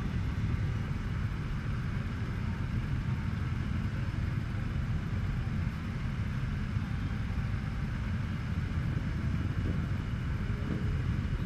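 A large pack of motorcycles, a Honda Gold Wing 1800 among them, running at walking pace and idling. It is heard as a steady low rumble of many engines blended together.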